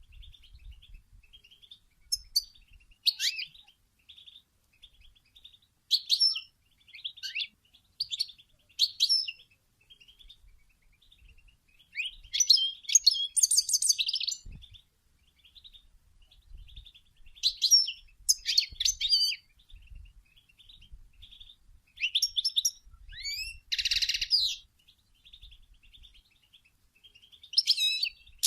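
European goldfinch twittering its soft chattering song: phrases of quick, high chirps and trills every couple of seconds over a faint, continuous twitter.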